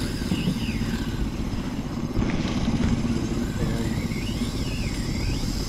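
Small boat's outboard motor running steadily, a low rapid pulsing drone, with a faint whine that rises and falls a couple of times over it.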